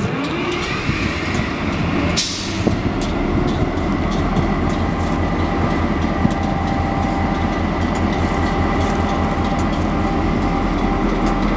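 Canadian Pacific diesel locomotive engines starting up: a rising and falling whine as they crank over, catching about two seconds in, then settling into a steady idle rumble.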